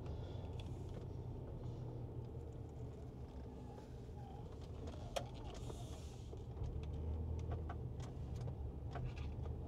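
Inside the cabin of a Land Rover LR4 driving slowly through a turn: a low, steady engine and road hum. A single sharp click comes about five seconds in, and a few faint ticks follow near the end.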